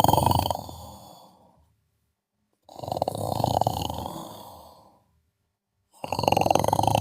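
Snoring during sleep: three snores about three seconds apart, each starting suddenly and fading away, with silence between them.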